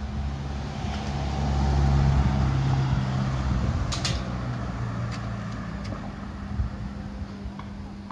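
A motor vehicle's engine running close by on the street, swelling to its loudest about two seconds in and then slowly fading as it passes. A brief sharp click comes about four seconds in.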